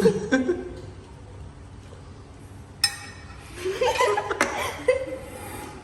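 Chuckling and laughter, at the start and again from about three and a half seconds in, with a single sharp click just before the second laugh.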